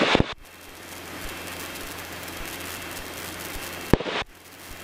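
Cessna 150 cockpit noise in flight: a steady rushing hiss over the low drone of its four-cylinder Continental O-200 engine, cutting in just after the start and cutting off abruptly near the end.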